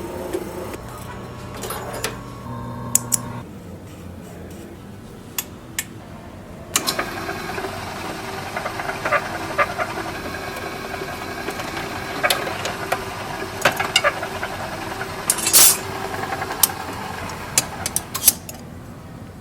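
Leatherworking sounds: a sewing machine stitching in a long continuous run from about seven seconds in until near the end, with scattered sharp clicks and taps of hand tools. A short steady hum stops about three and a half seconds in.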